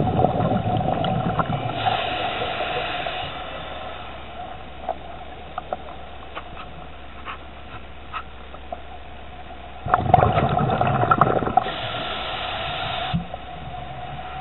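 Scuba diver breathing through a regulator underwater, twice about ten seconds apart: each breath is a rush of exhaust bubbles followed by a short hiss. Small scattered clicks fall between the breaths.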